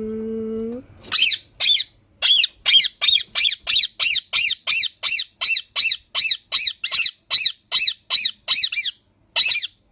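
Green parrot giving a long series of short, shrill calls, about two or three a second, each rising and falling in pitch, with a brief pause near the end. A short low-pitched utterance comes just before the calls start.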